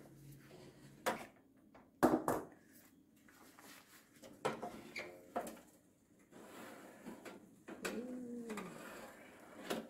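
Countertop electric oven's wire rack and glass door being handled: a few sharp knocks and clatters as the dish is slid in and the door shut, then a short squeak near the end as the door is opened again.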